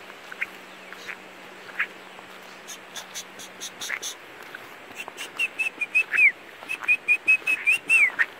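Birds chirping: scattered short high chirps, then from about five seconds in a quick run of high whistled notes, twice ending in a falling note.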